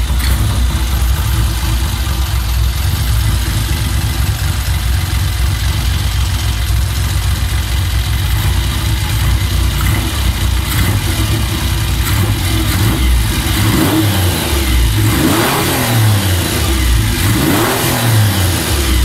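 Triumph Trident T160's 750 cc three-cylinder engine running just after an electric start, steady at first, then revved up and back down several times in the second half. It runs on freshly cleaned and set-up Amal Concentric carburettors with new 19 pilot jets, and the owner calls it "such sweet music".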